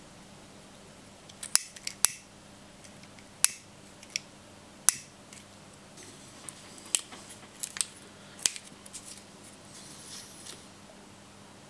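Fly-tying scissors snipping: about eight sharp, separate clicks at irregular intervals, with a faint rustle of handling near the end.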